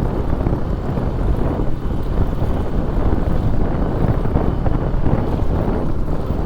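Wind rushing over the microphone of a motorcycle rider's camera, mixed with the motorcycle's engine and road noise, steady throughout.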